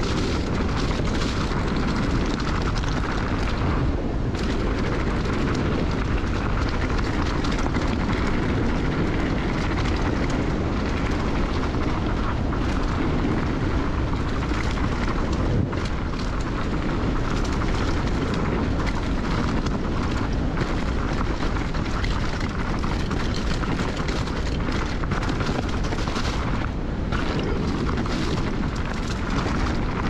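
Wind buffeting the microphone in a steady low rumble, over mountain bike tyres rolling across leaf-covered dirt singletrack, with a few short knocks and clatters from the bike over bumps.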